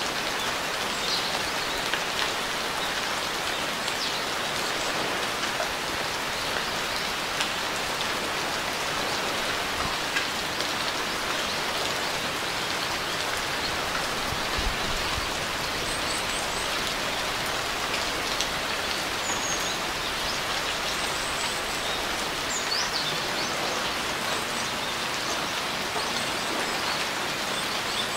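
Steady rain falling, an even hiss with scattered individual drops ticking. A few faint, short, high bird chirps come through now and then in the second half.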